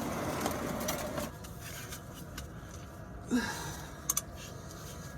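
Faint handling noises of a wrench being worked on a car's oil drain plug, with a couple of sharp clicks about four seconds in.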